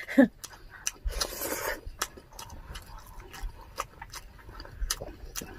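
Close-miked eating sounds: chewing crispy pork belly and noodles, with many short sharp clicks and crunches and a brief noisy burst about a second in.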